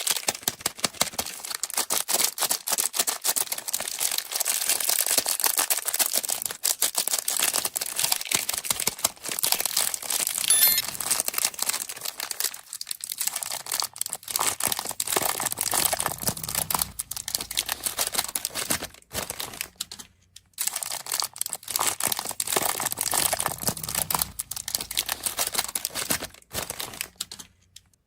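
Candy wrappers crinkling and tearing as sweets are unwrapped, a dense crackle with two brief lulls that stops just at the end.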